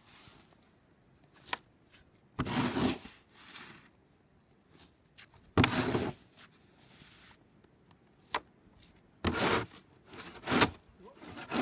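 Snow shovel scraping and scooping snow in about five short strokes, each lasting around half a second, with a couple of sharp clicks between them.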